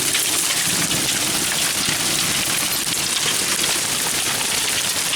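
Hail and rain pelting down hard: a dense, steady clatter of countless small impacts.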